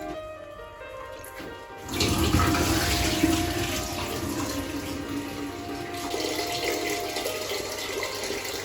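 Water pouring into a pot of washed rice. The rush starts suddenly about two seconds in and keeps up steadily, with faint background music underneath.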